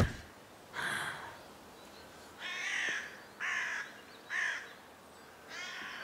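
Crows cawing: five harsh caws, each about half a second long and spaced roughly a second apart. A car door shuts with a thud at the very start.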